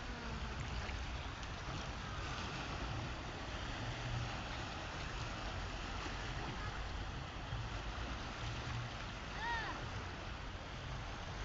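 Sea waves washing steadily, with a low rumble underneath. A single short, high call rises and falls once near the end.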